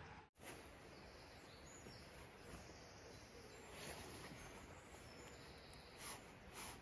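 Near silence: faint outdoor background noise, with a few soft fabric rustles, the loudest twice near the end, as a sleeping bag is hung over a tree branch.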